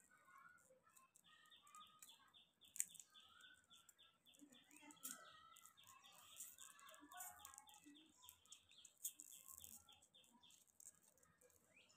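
Faint crinkling and crackling of a foil lollipop wrapper as fingers peel it off, with a few sharp crackles. Behind it a bird chirps in a quick, even series of short notes, about four or five a second, from about a second in until near the end.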